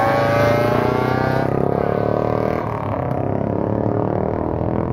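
Old motorcycle engines accelerating along the road, their pitch climbing steadily over the first two and a half seconds before the note fades into a lower, rougher rumble as the bikes pull away.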